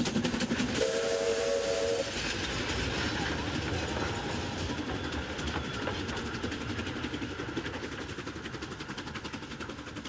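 Narrow-gauge steam train on the move: a short steam-whistle blast about a second in, then the steady clatter of the train running, slowly fading.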